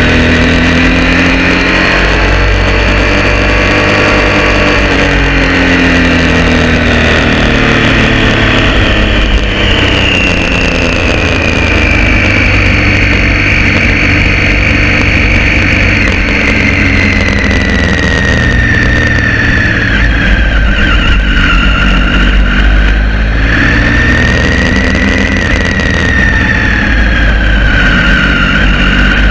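Triumph Street Triple R 675's three-cylinder engine through an unbaffled Arrow exhaust, running at low revs with the pitch drifting gently up and down as the bike slows to pit-lane speed.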